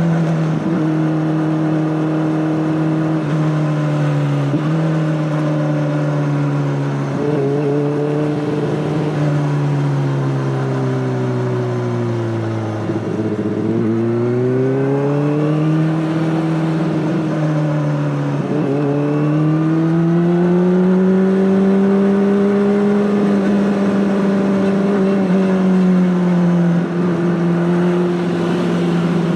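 Honda CBR600RR inline-four engine running through an Akrapovic exhaust. The engine note holds steady, drops gradually to a low about halfway through, then climbs back with a few short breaks and settles into a steady higher note.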